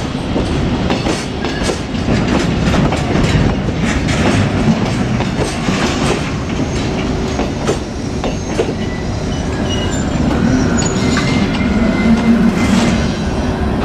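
Freight train hauled by a JR Freight EF81 electric locomotive rolling past close by, its wheels clicking over rail joints in an uneven string over a steady rumble. Thin high squeals from the wheels join in over the last few seconds.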